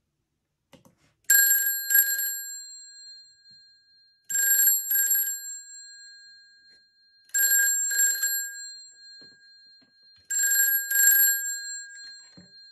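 A 500 series telephone's ringer strikes its twin bell gongs in a double-ring cadence: four ring-rings about three seconds apart, each leaving a bell tone that dies away. The ringing isn't right, which the restorer puts down to a bell gong that needs moving into place on its cam mount.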